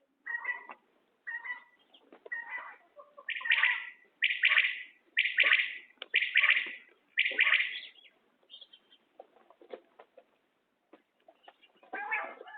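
Common quail calling: a few faint calls, then a run of five louder calls about one a second, followed by scattered faint clicks.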